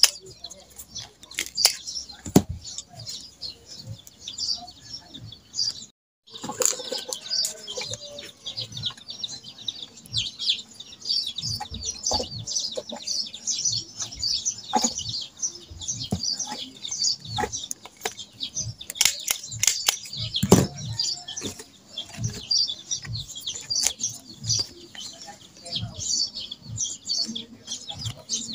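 Many small birds chirping continuously in a busy chatter, over close crinkling and rustling of banana leaf and plastic ribbon being folded by hand.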